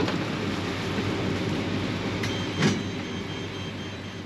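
Steady mechanical rumble with a low hum, broken by a sharp knock about two and a half seconds in.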